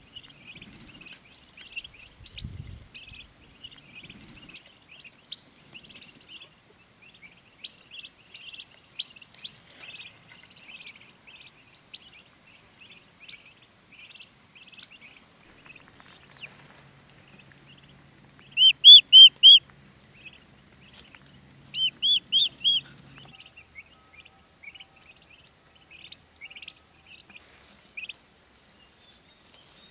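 Turkey poults a few days old peeping steadily in short, high chirps. About two-thirds of the way through come two loud, close runs of four peeps each.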